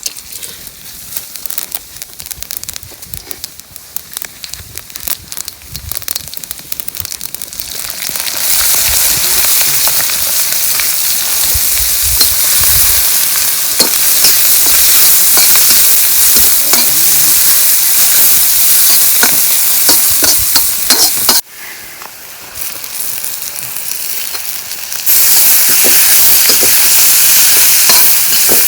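Food frying in hot oil in a cooking pot for biryani, with scattered small clicks and scrapes of stirring. The sizzle is light at first, turns loud about a third of the way in, drops suddenly for a few seconds near the end, then comes back loud.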